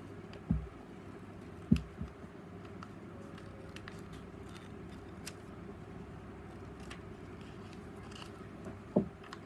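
Handling noise while working with paper and scissors: a few short dull knocks, the loudest about two seconds in and another near the end, with faint light clicks, over a steady low hum.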